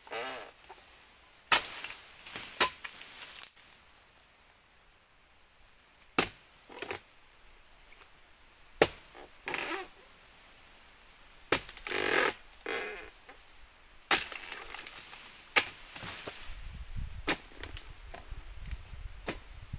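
Sharp, irregularly spaced chopping strikes of a harvesting blade cutting oil palm fronds, some followed by about a second of rustling.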